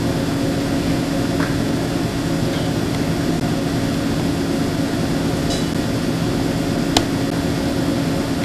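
Steady machine hum with a constant low tone, with a single sharp click about seven seconds in.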